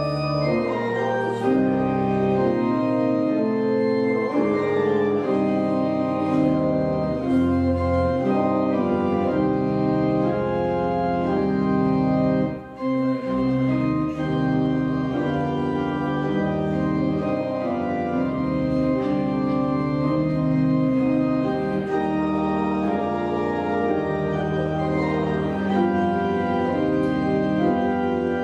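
Church organ playing slow, sustained chords, with a short break about twelve seconds in.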